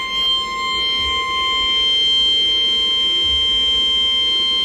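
NOAA Weather Radio warning alarm tone: one steady, unbroken high-pitched tone, the alert that comes before a tornado warning broadcast.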